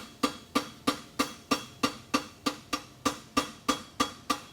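Hand hammer striking an aluminum bar shoe on an anvil in a steady rhythm, about three blows a second, each with a short metallic ring.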